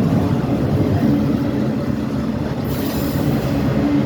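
Passing train, a steady low rumble, with a higher hiss joining about two-thirds of the way through.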